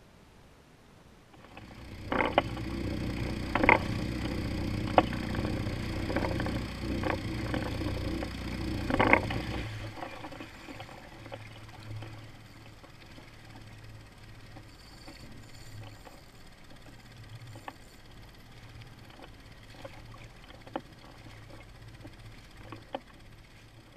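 Small Suzuki 2.5 hp four-stroke outboard on a kayak. It comes in loud about a second and a half in, with a few sharp knocks over the first several seconds. About ten seconds in it drops to a quieter, steady idle.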